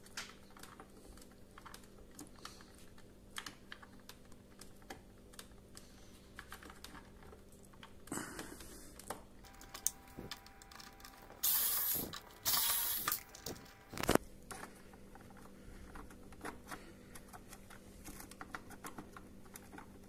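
Small plastic clicks and rattles of hands working on a dishwasher's control panel, pulling its cable connectors. About halfway through come two short, louder hiss-like noises, then a sharp knock.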